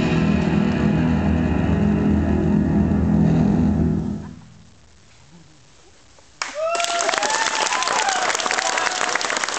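Performance music with a deep sustained chord fades out about four seconds in. After a short lull, an audience breaks into applause about six and a half seconds in, with a few whoops over the clapping.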